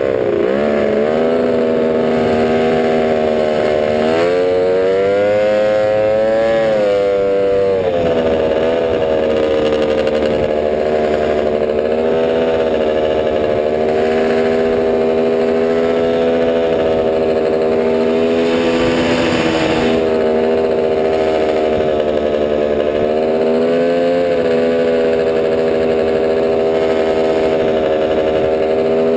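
Piped three-cylinder two-stroke Polaris Ultra 680 snowmobile engine, swapped into a quad, running under way. Its pitch rises and falls with the throttle, and it mostly holds a steady cruise.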